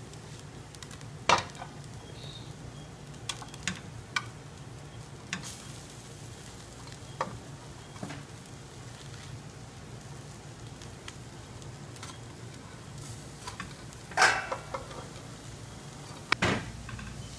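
A metal spoon scrapes and clinks against a steel pan as shredded cabbage and carrots are stirred into a chicken filling, with a light sizzle. Scattered knocks of the spoon stand out: the loudest come about a second in and twice near the end, over a steady low hum.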